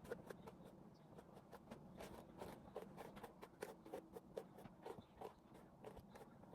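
Near silence with faint, irregular light clicks and taps, several a second.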